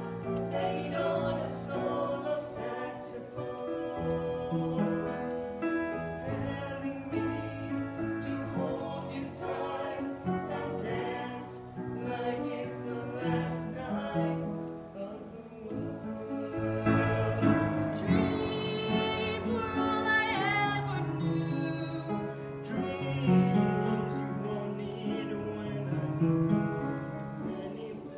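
Musical-theatre duet singing over instrumental accompaniment, with the voices climbing to a higher, louder line a little past the middle.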